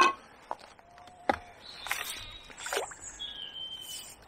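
Hooked roach–bream hybrid splashing at the surface as it is drawn on the pole elastic toward the landing net, with a sharp click at the start and several lighter knocks from the tackle. A short high whistle-like call comes near the end.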